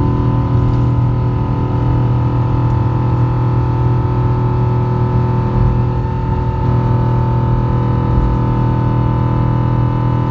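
Cabin noise of an Airbus A350-900 during liftoff and initial climb: the Rolls-Royce Trent XWB engines at takeoff thrust give a steady drone with several fixed whining tones over a low rumble, heard inside the cabin.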